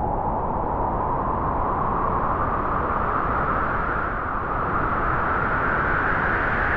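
Wind sound effect: a steady rushing howl of wind whose pitch slowly rises.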